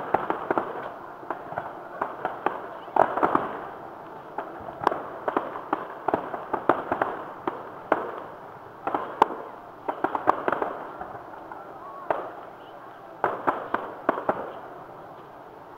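Distant fireworks show: clusters of sharp bangs and crackling reports every second or two, dulled by distance, thinning out near the end.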